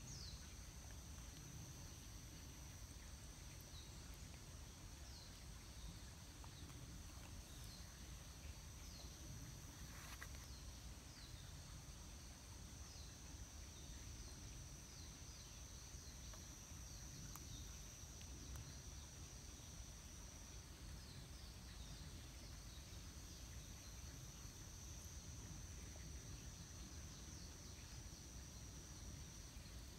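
Faint outdoor ambience: a steady high insect trill, with short falling chirps now and then and a low rumble underneath.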